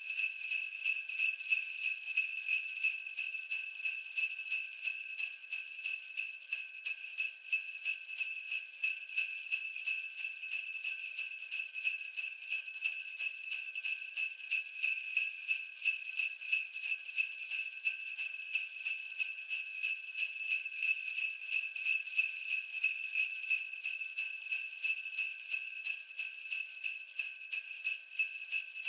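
Sleigh bells shaken in a steady, even rhythm, giving a high, continuous jingling.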